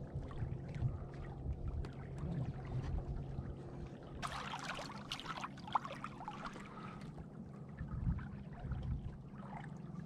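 Water gurgling and splashing along the hull of a small sailboat under way, over a low wind rumble on the microphone. About four seconds in the splashing grows louder for a few seconds, then settles.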